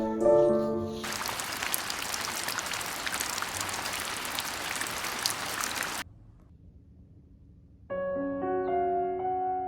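Piano music, cut after about a second by a steady hiss of heavy rain falling, with fine drop ticks, that stops suddenly about six seconds in; the piano music comes back near the end.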